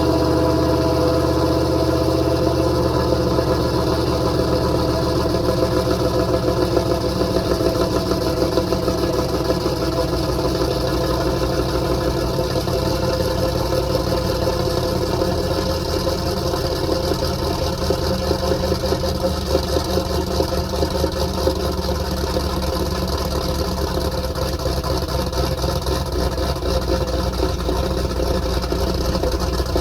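334 cubic-inch small-block Chevy stroker V8, just started, idling loud and steady as it warms up. It is running on a freshly adjusted choke idle screw.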